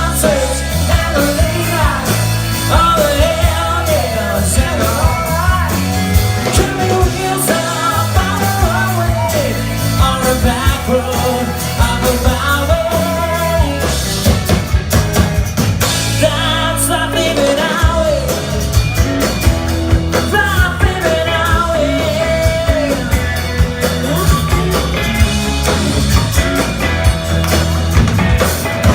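Live rock band playing: drum kit, bass and electric guitars with singing on top, at a steady loud level.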